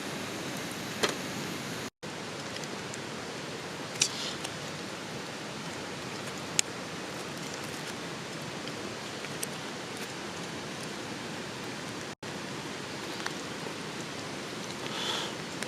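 Steady, even rushing noise outdoors, with a few sharp clicks or pops, the loudest about four seconds in, and two brief dropouts to silence.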